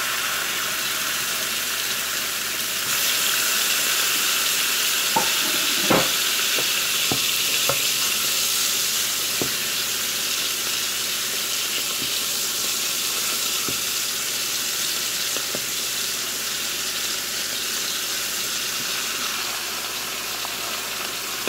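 Steak sizzling in butter in a hot frying pan, a steady sizzle that swells about three seconds in. A few light knocks and scrapes of a wooden spatula against the steak and pan come between about five and ten seconds in.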